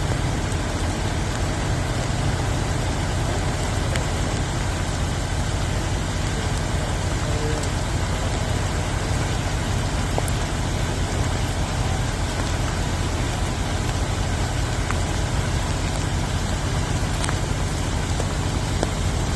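Steady low rumble of an idling vehicle engine under an even hiss.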